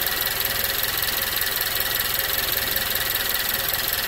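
Turbocharged 1.6-litre four-cylinder engine of a 2015 Nissan Juke Nismo RS idling steadily, heard close up in the engine bay, with a faint steady high tone over it.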